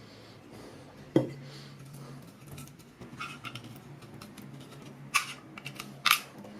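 Metal clinks and scraping from work on a rusty metal toy truck: a sharp clank with a brief ring about a second in, some scraping a couple of seconds later, and two short rasps near the end.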